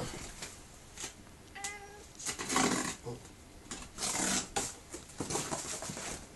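Hands scraping and pulling at two cardboard boxes stuck together, in several short scraping bursts with a few knocks. A brief cat meow about one and a half seconds in.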